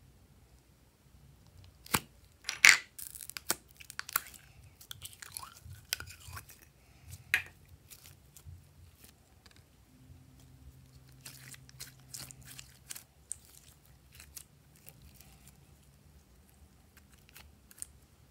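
Plastic slime jar opened with a couple of sharp clicks, the second the loudest, then sticky clear glitter slime pulled out of the jar with wet crackling and squelching, fading to fainter sticky crackles as it is pressed into the bowl.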